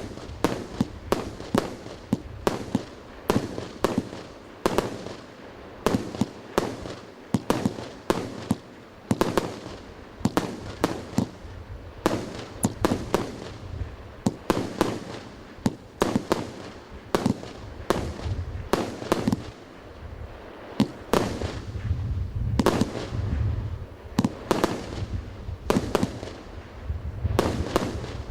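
Fireworks from the 'Planeta feierverkov' product going off in a long, steady series of sharp bangs, about one to two a second, some trailing a short crackle or echo.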